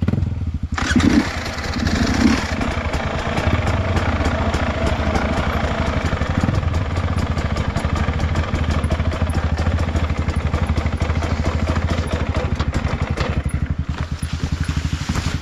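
Trail motorcycle engine catching about a second in, then running hard with a fast, even beat, easing off a little near the end.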